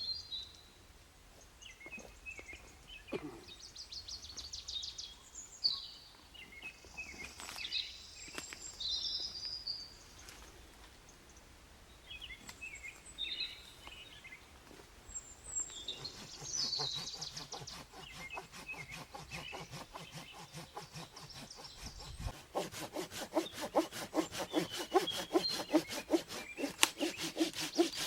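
Birds chirping, then a hand saw cutting wood, starting faintly and turning loud in a steady rhythm of strokes over the last few seconds.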